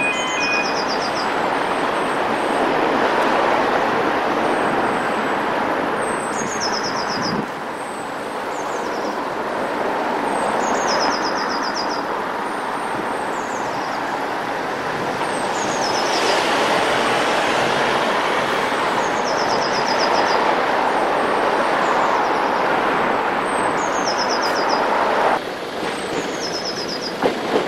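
Steady noise of road vehicles idling at a closed railway level crossing, with a short, high, descending chirping run recurring every few seconds.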